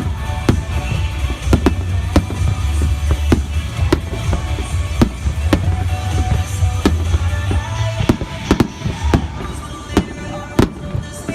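Fireworks shells bursting in a rapid barrage of sharp bangs, about two a second, over music with a heavy bass that drops away about eight seconds in.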